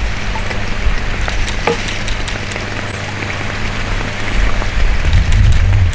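Lake water splashing and dripping with scattered small clicks, joined about four seconds in by a low rumble of wind on the microphone that grows louder.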